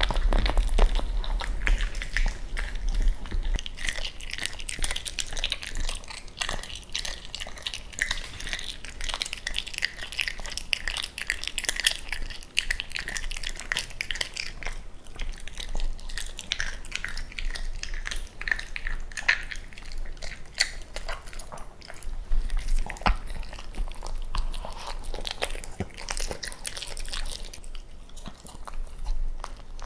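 A Cavalier King Charles Spaniel chewing raw chicken, biting and crunching through the soft bone in a dense, irregular run of clicks.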